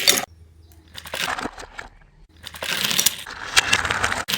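Crackling, rustling noise with many small clicks, coming in three bursts, the longest in the second half.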